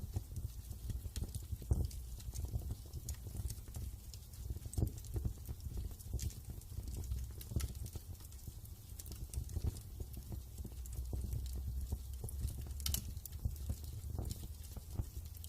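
Wood fire crackling: irregular sharp pops and snaps over a low, steady rumble.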